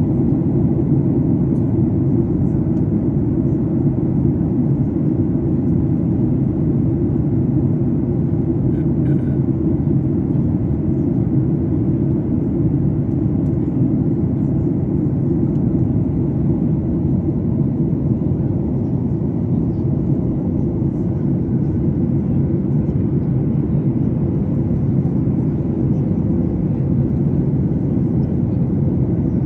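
Airliner cabin noise during the climb: a steady low drone of engines and rushing air, heard from inside the cabin by the wing.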